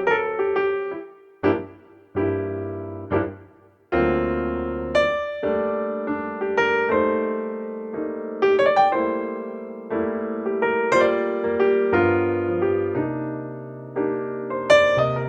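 Background piano music: single struck notes and chords that ring and fade, with a couple of pauses between phrases about one to four seconds in.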